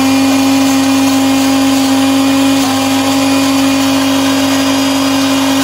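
Philips countertop blender running at one steady speed, blending red chillies into a wet paste, with an even motor hum and whirr.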